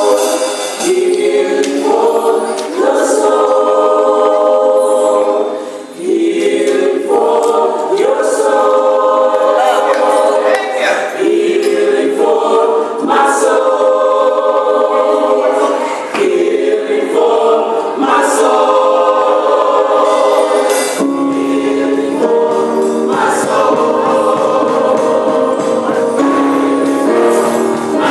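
Gospel choir singing, with sustained sung notes that change in phrases of about two seconds.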